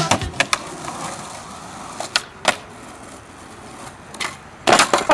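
Skateboard wheels rolling on concrete, with a few sharp clacks of the board, then a louder rough clatter of the board on a concrete ledge near the end.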